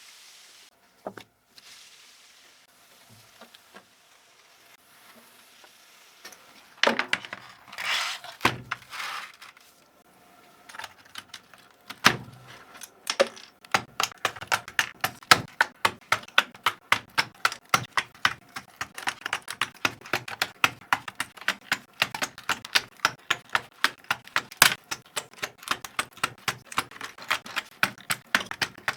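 Computer keyboard keys clicking in a quick, irregular run of several clicks a second, after a quieter stretch of faint handling with a few scrapes and a single sharp click.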